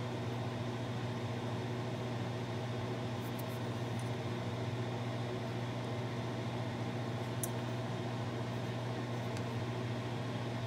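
Steady low machine hum, like a fan or air-conditioning unit running in a small room, with two faint light ticks.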